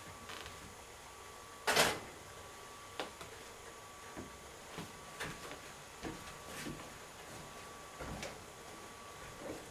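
Kitchen handling sounds: a stainless steel saucepan set down on an electric stovetop with a short clatter about two seconds in, followed by scattered light knocks and clicks.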